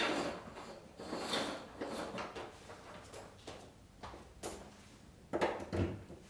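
Irregular plastic knocks, clicks and rustling from a Karcher VC 6100 vacuum cleaner and its parts being handled. The loudest knocks are near the start and about five and a half seconds in.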